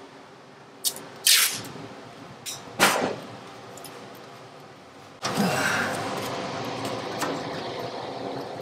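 Handling noises of a cardboard floor template and masking tape being worked into place: a few sharp rustling scrapes and crackles in the first three seconds. About five seconds in, a steady machine-like noise starts suddenly and runs on, slowly fading.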